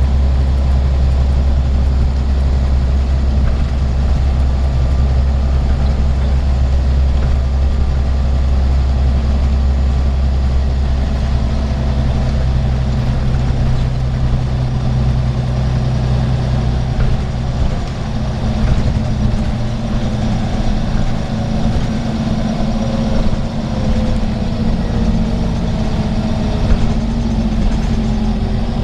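Scania N94UB single-decker bus under way, heard from inside the saloon: the rear-mounted 9-litre five-cylinder diesel gives a steady low drone over road noise. After about two-thirds of the way through the low drone thins out, and a faint whine falls slowly in pitch toward the end.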